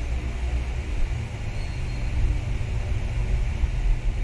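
Steady low rumble with an even hiss above it: continuous background noise with no distinct events.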